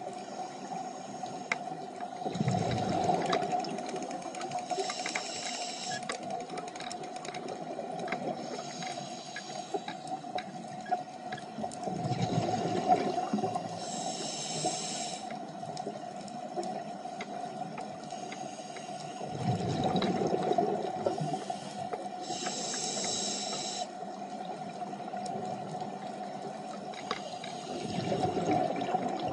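Scuba diver breathing through a regulator underwater: a hiss on each inhalation and a rumbling rush of exhaled bubbles, repeating about every eight or nine seconds, over a steady low hum.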